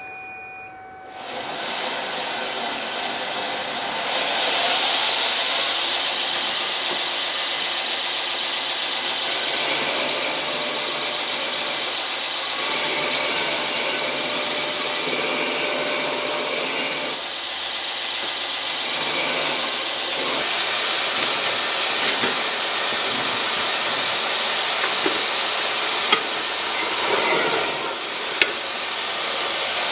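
Belt grinder running with a steel knife blade pressed against its abrasive belt: a steady grinding hiss. It starts about a second in and eases off briefly twice, near the middle and near the end.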